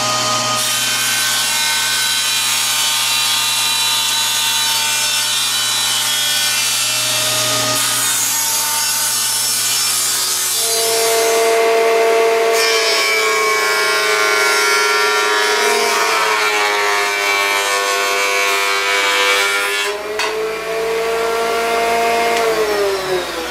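A table saw runs, ripping a pressure-treated 2x8 board. About ten seconds in, a Delta benchtop jointer takes over with a higher whine as the twisted board is passed over it to flatten one face. Near the end the jointer motor winds down with a falling whine.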